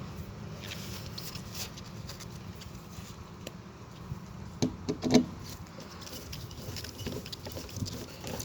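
Light clicks and scratches of hand work on a fire alarm pull station over a steady low hum, with two short, louder sounds about five seconds in.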